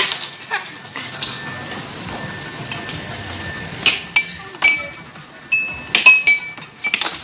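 Air hockey puck being struck by plastic mallets and bouncing off the table's rails during a rally: sharp clacks, coming in quick runs about four seconds in and again near the end.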